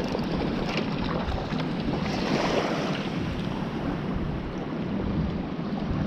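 Steady wind buffeting the microphone over the wash of sea water.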